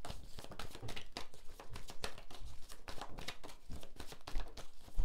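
Tarot cards being handled: a quick, irregular run of light clicks and taps as the deck is worked.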